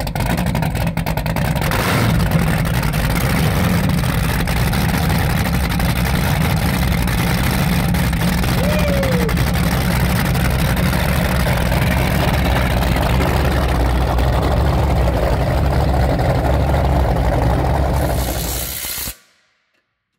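A loud motor or engine running steadily with a deep, even hum, then stopping abruptly near the end.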